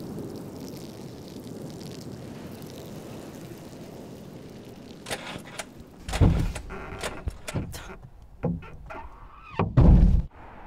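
Steady low rumble of a car sitting with its engine running, then a run of knocks, rustles and thumps from inside the car, the loudest a heavy thump near the end.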